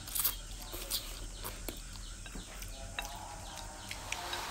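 Thick rice noodles slurped through the lips just after the start, then chewing with small wet mouth clicks and smacks.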